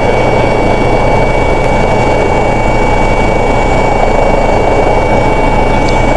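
Steady, loud drone of an aircraft's engines heard from inside the cabin, with a constant high-pitched whine over a dense rushing roar.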